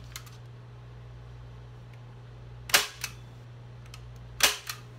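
Manual staple gun firing T50 staples through canvas into a wooden stretcher bar: two sharp snaps, a little under two seconds apart, each followed by a smaller click as the handle springs back. A steady low hum runs underneath.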